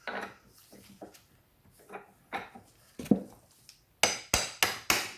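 Metal tools and parts clinking as they are handled, with one heavier knock about three seconds in. About four seconds in, a steady run of sharp metal-on-metal hammer blows begins, about four a second: a hammer striking a socket to drive a part evenly onto a CV driveshaft.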